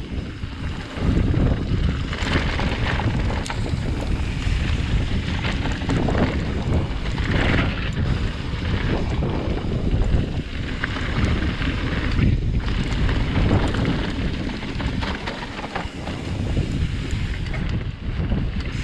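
Wind buffeting the microphone of a camera riding along on a Trek Slash 8 mountain bike going downhill, mixed with the uneven rumble and rattle of the bike and its tyres over rough, rain-wet trail, the hiss swelling and fading every second or two.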